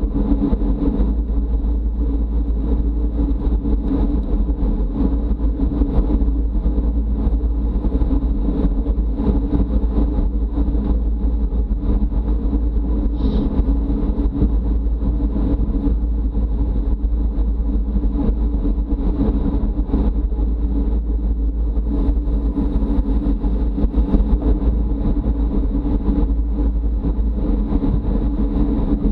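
Steady rush and low rumble of wind on a camera microphone riding in a bicycle road race at speed, with tyre and road noise beneath it.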